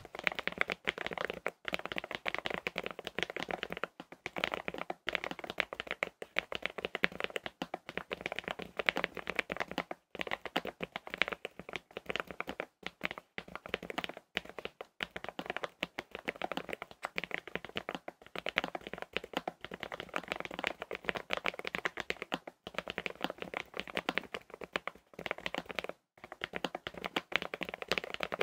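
Fast, continuous typing on a Lofree Edge ultra-low-profile mechanical keyboard with linear Kailh POM 2.0 switches and PBT keycaps: a dense run of key clacks with a few short pauses.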